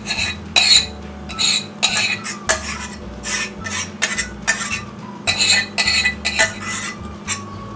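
A spoon scraping and clinking against the inside of a stainless steel saucepan as thick pineapple filling is scraped out: about a dozen short, irregular strokes with a metallic ring.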